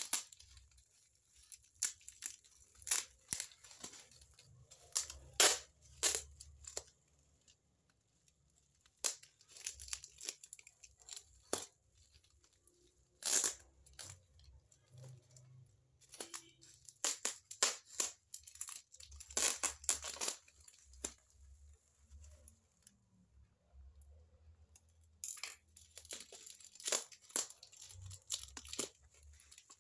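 Brown packing tape being peeled and ripped off a plastic-wrapped parcel, in a string of short, irregular rips with pauses between.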